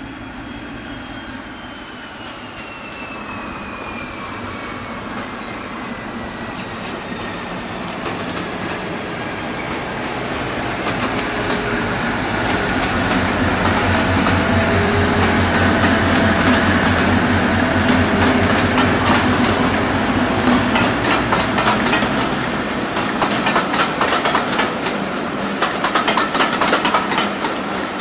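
Diesel locomotive in Colas Rail Freight livery hauling a train of coaches past, its engine throb growing louder as it approaches and goes by. Then the coach wheels click rhythmically over the rail joints as the rake rolls past.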